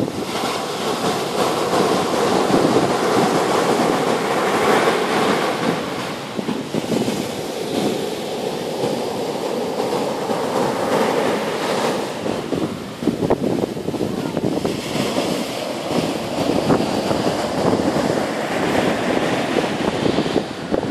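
Surf breaking and washing up a sandy beach in slow, repeated surges, with wind buffeting the microphone.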